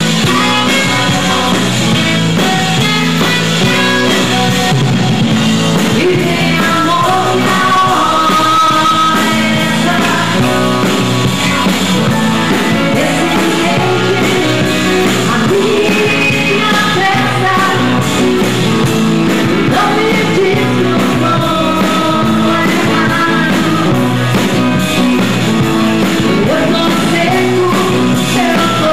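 Live band playing a pop-rock song, with electric guitar and drums, while a woman sings lead into a handheld microphone.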